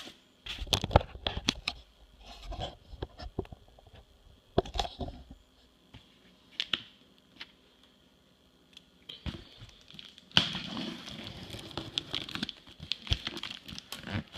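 A cardboard shipping box being opened by hand: scattered knocks and tearing sounds, a quieter pause, then from about ten seconds in a continuous crinkling and rustling.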